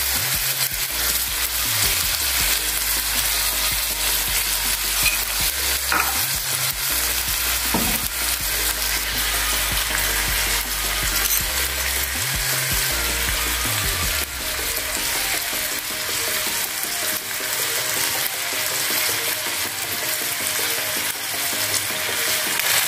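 Whole tilapia sizzling steadily in a double-sided grill pan, the sweet soy sauce basting spitting and frying on the hot pan.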